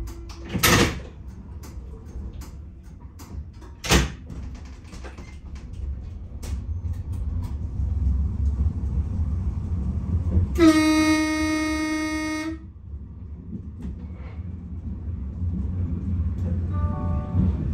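Berlin U-Bahn F-series camshaft-controlled train: two sharp thumps in the first few seconds, then a low running rumble that builds as the train moves. About ten seconds in comes a steady two-second horn blast.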